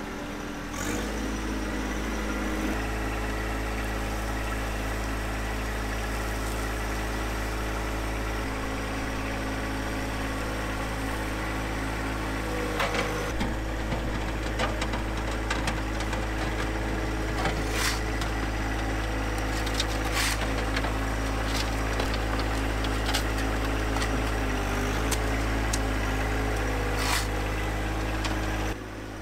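John Deere 1025R compact tractor's three-cylinder diesel engine running steadily while its front loader scoops dirt and rubble. A few short, sharp clanks come from the loader bucket.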